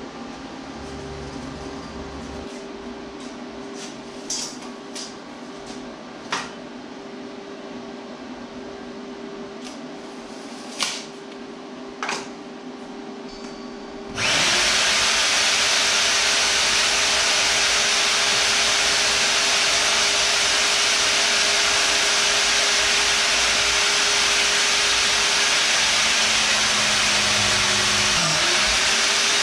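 A few sharp metal clinks as steel tubing is handled. About halfway through, a bench-mounted power tool starts abruptly and runs steadily and loudly, working a length of steel tube.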